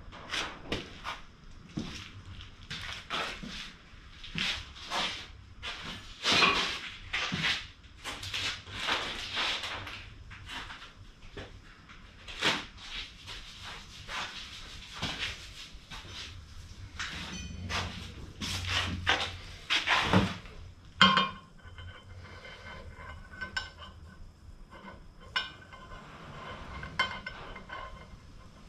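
A run of clinks, taps and knocks from hard objects being handled and set down on a workbench, loudest about six seconds in and again near twenty seconds, then quieter scattered clatter.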